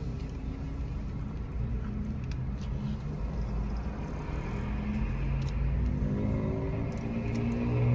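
Steady low rumble of a car engine idling, heard from inside the cabin, with faint scattered clicks of a person chewing a burger and handling its paper wrapper.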